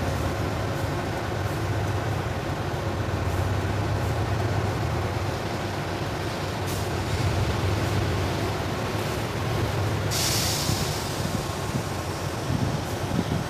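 Diesel rail vehicle engine running in the distance with a steady low drone, with a sudden hiss about ten seconds in.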